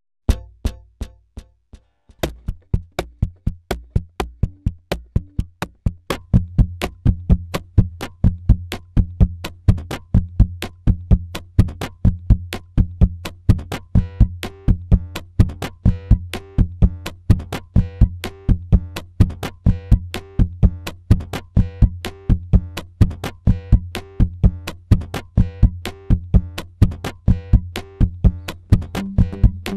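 Acoustic guitar played percussively: sharp taps and slaps on the guitar body and strings keep a steady beat over low bass notes. The groove thickens as more layers join about two seconds in, again around six seconds and again around fourteen seconds.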